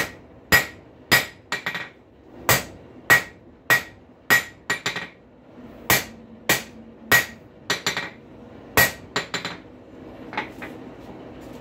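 Hand hammer forging a hot rail spike on an anvil: steady blows about every 0.6 s, some followed by quick lighter taps, each with a short metallic ring. The blows stop after a last lighter strike near the end.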